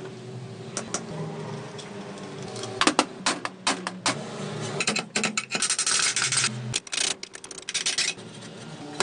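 Metal parts of an old Marunaka wood planer being handled during dismantling: scattered clicks and knocks, then two bursts of scraping about six and eight seconds in.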